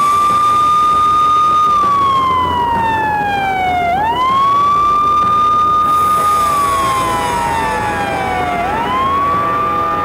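Handheld megaphone's electronic siren wailing. The tone holds high, slides slowly down, then jumps quickly back up, twice, about every four and a half seconds.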